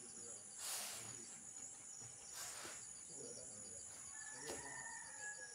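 Insects trilling steadily at a high pitch, with two short rustling noises about a second and two and a half seconds in. A thin high tone comes in near the end.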